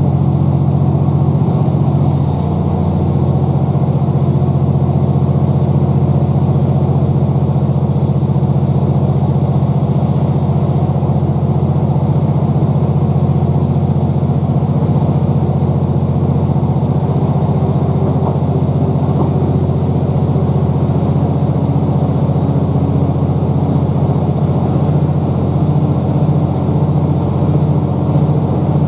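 MAN D2876 straight-six diesel engine under a Class 769 coach, running steadily with small shifts in pitch, heard from inside the coach together with the rumble of the train moving along the track.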